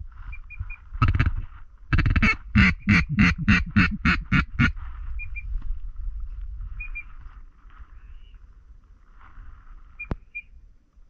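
Loud duck quacking in the rhythm of a hen mallard: a single quack about a second in, then a quick run of about ten evenly spaced quacks. Fainter duck calling and small high peeps follow, with one sharp click near the end.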